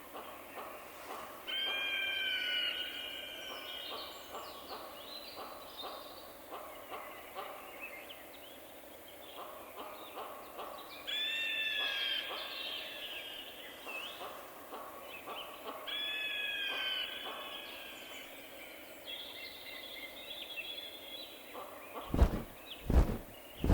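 Eagle calling: three loud, harsh cries that fall slightly in pitch, spaced a few seconds apart, with softer chirps and clicks between them. Near the end a run of heavy, low thumps begins, about two a second.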